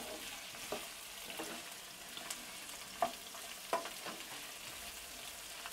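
Cauliflower florets frying in oil in a nonstick kadhai: a faint, steady sizzle, with a wooden spatula stirring and scraping the pan in several short strokes.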